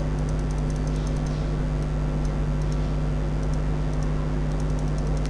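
Steady low electrical hum with hiss from the narration microphone's recording chain, with a few faint ticks.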